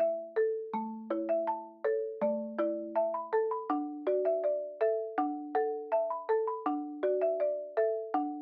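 Background music: a light, bouncy melody of struck mallet notes in the manner of a marimba or music box, several notes a second.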